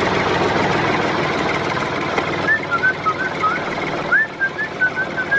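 A small motor running steadily with a fast, even rattle. From about halfway in it is joined by a run of short, high chirps.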